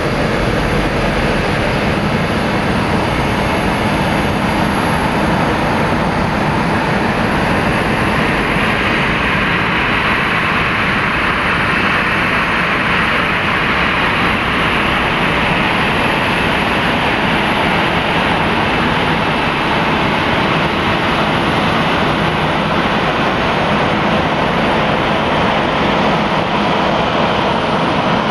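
Boeing 737-800's CFM56-7B jet engines running at taxi power: a steady loud rush with a faint high whine, growing brighter about eight seconds in.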